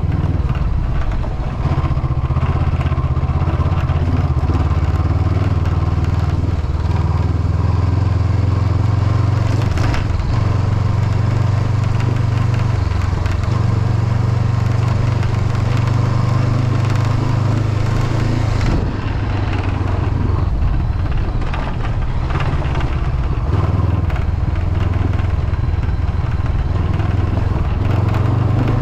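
Honda CB500X parallel-twin engine running under way, with tyres crunching over gravel and a windshield rattling because it has lost a mounting screw. The engine note shifts about halfway through and drops lower for a moment a little later.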